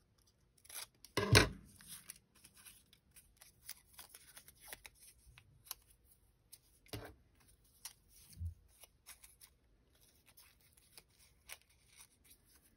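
Small paper slips being handled and folded by hand: soft rustles and small clicks, with a louder knock about a second in and a couple of duller knocks later on.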